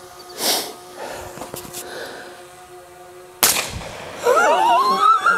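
A rifle shot about three and a half seconds in as a spray paint can is hit and bursts into a fireball, followed by a man's rising, excited whoop. A softer burst of noise comes about half a second in.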